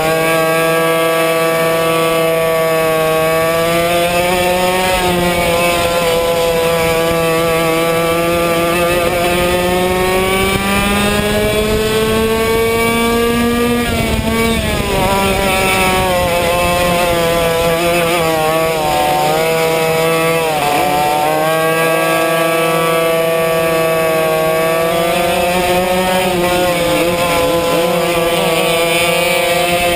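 Yamaha 100cc two-stroke racing kart engine at full throttle, heard on board the kart. Its pitch climbs steadily for about fourteen seconds, falls sharply, dips again a few seconds later, then climbs once more.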